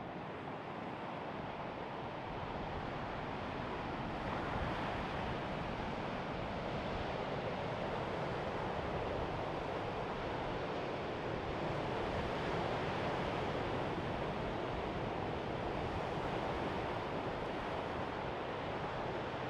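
Mediterranean surf breaking on a sandy beach: a steady wash of waves that grows a little louder about four seconds in.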